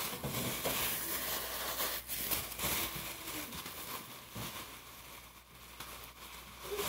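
Rustling and crinkling of packaging being rummaged through, with scattered sharp crackles. It is louder at first and eases off about halfway through.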